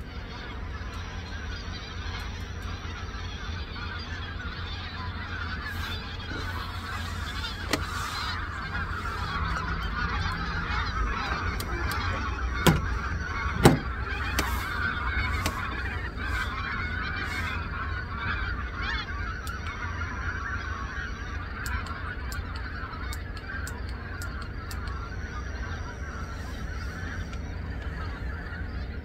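A large flock of migrating wild geese honking overhead, a dense chorus of calls that swells through the middle and eases toward the end. About halfway through, two sharp knocks a second apart.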